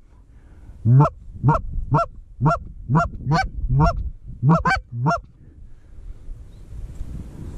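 Goose honking: a run of about nine short, loud honks, each rising in pitch, spaced about half a second apart, stopping about five seconds in.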